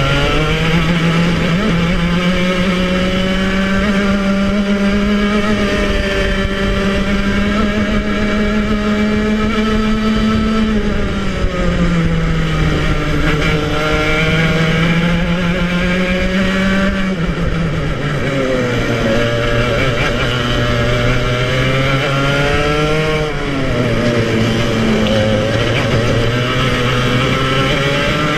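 Club100 115cc TKM two-stroke kart engine at racing speed, heard onboard: the revs climb slowly, then drop sharply as the kart slows for corners, about three times.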